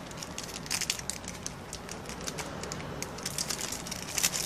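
Thin clear plastic sheeting crinkling and crackling as it is handled. There are irregular crackles, thickest about a second in and again near the end.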